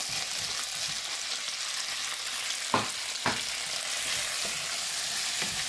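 Beef pieces on toothpicks sizzling steadily in hot oil with minced garlic in a wok as they are tipped in and stirred. Two sharp knocks come about three seconds in.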